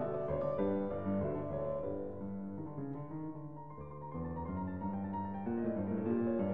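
Background piano music, a melody played in steady notes.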